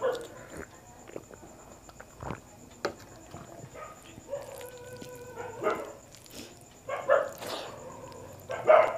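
A dog barking in the background: several short barks, with one longer, drawn-out whine about halfway through. Faint clicks from hand-eating lie between the barks.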